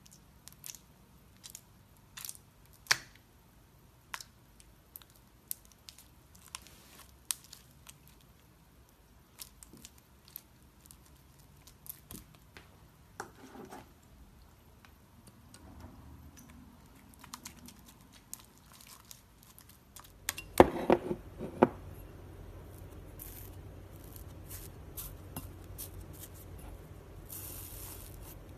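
Fingers poking, pressing and stretching slime, making scattered sharp clicks and pops, with a cluster of louder squelching pops a little past two-thirds in.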